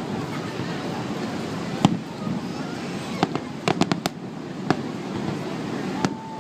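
Fireworks bursting overhead: sharp bangs, one about two seconds in, a quick run of four or five around four seconds, and single bangs after, over a steady background rumble.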